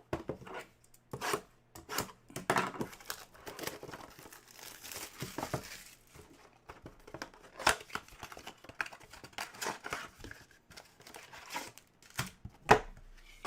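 Trading-card packaging being torn open and crinkled by hand: irregular crackling and ripping of plastic wrapper as basketball card packs are opened.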